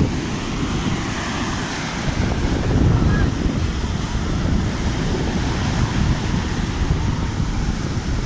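Wind buffeting the microphone, a heavy, irregular low rumble over a steady rushing hiss.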